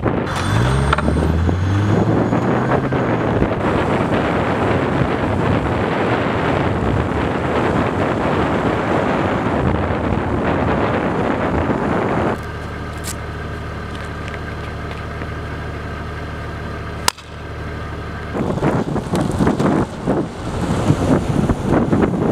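Wind buffeting the camera microphone from a moving follow car, over car engine and road noise, with the engine pitch rising briefly near the start. About twelve seconds in this drops to a quieter, steady drone, broken by one sharp click. The loud wind noise returns near the end.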